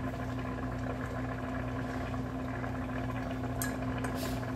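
Oyakodon broth with chicken, onion and egg simmering in a saucepan: steady soft bubbling over a low, even hum.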